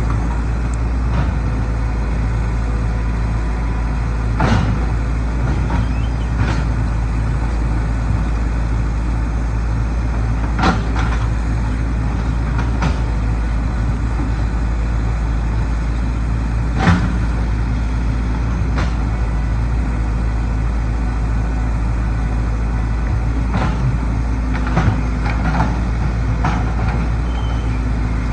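Hyundai 220LC excavator's diesel engine running steadily under load while digging and loading dirt, with about ten sharp knocks and clanks at irregular intervals from the bucket and the dirt and rock it handles.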